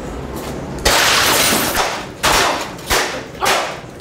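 A sledgehammer smashing objects: a loud crash with clattering debris about a second in, then three more hard blows in quick succession.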